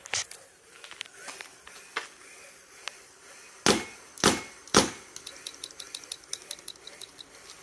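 Smart Parts Dark Shocker SFT paintball marker firing three loud shots about half a second apart, midway through. A fast run of faint clicks follows.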